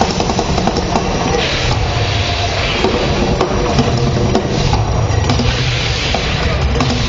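The Mirage volcano show erupting: a loud, steady roar with a low rumble underneath, from the attraction's fire effects and its show soundtrack.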